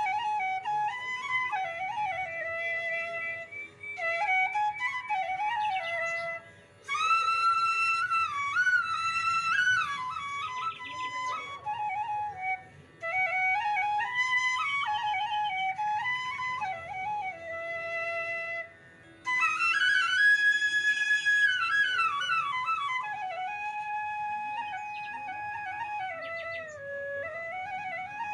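Background music: a solo bamboo-flute-style melody, ornamented and gliding between notes, with brief pauses between phrases.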